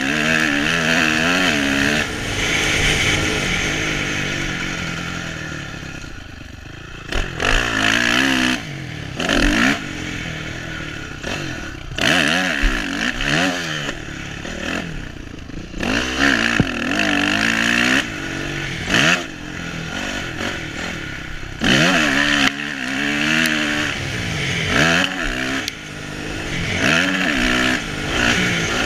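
Honda motocross bike engine heard from the rider's helmet, revving up and down through gear changes and throttle chops as it laps a dirt track. It eases off about six seconds in, then comes back in short bursts of hard acceleration.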